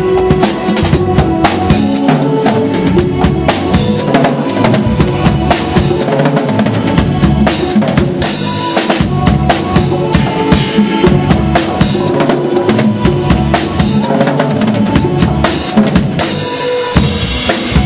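Live jazz-funk band playing, with the drum kit loud and busy: a steady stream of bass drum, snare and rimshot strokes over held notes from the other instruments.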